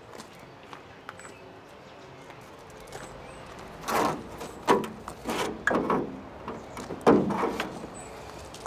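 Rubber window seal being pulled and peeled off the metal frame of a VW T25 van's side window, by hand: a run of five or six rough, rasping pulls starting about halfway through.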